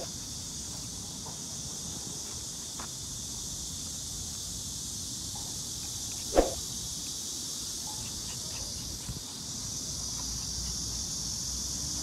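Steady high-pitched chirring of insects, with a single short, sharp puppy yip about halfway through as two toy poodle puppies play-fight.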